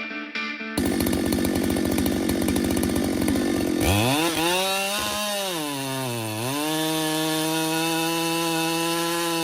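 Chainsaw running hard with a dense buzzing cut, then the engine revving up, dipping briefly and holding at high speed. Guitar music is heard for the first moment.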